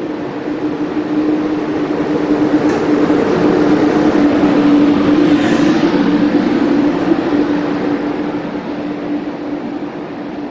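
ÖBB Taurus electric locomotive passing slowly along the platform track, its running noise swelling as it goes by close about halfway through and then easing off as it moves away. A steady electric hum runs underneath.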